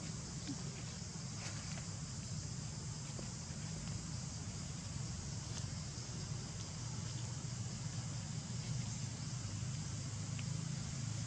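Steady outdoor background noise: a low rumble under an even high hiss, with a few faint clicks and no clear event.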